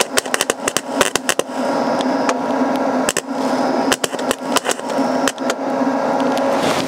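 MIG welder arc crackling and spitting in irregular pops over a steady hum, with the pops thickest in the first second or so. The welds are coming out splattery and poor because the shielding gas has run out.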